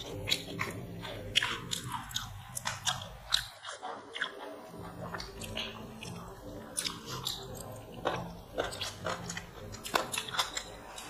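Several people eating chicken biryani with their hands: close-up chewing and mouth sounds, with many small irregular clicks and smacks.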